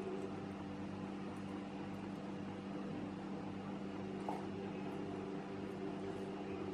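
A steady low electrical hum from a running appliance motor, with one faint click about four seconds in.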